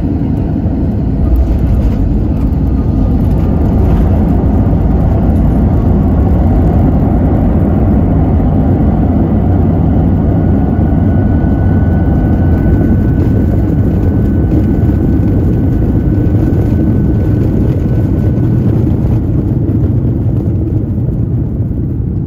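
Airbus A320-200 heard from inside the passenger cabin during landing: a loud, steady rumble of jet engines and airflow with a faint whine partway through, easing slightly near the end as the aircraft slows.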